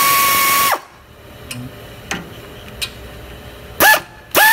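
Power tool spinning a 7 mm Allen socket to back out a brake caliper's guide-pin bolts. The motor whines in short runs, rising as it spins up and falling as it stops: one at the start, a brief blip near the end, then another short run.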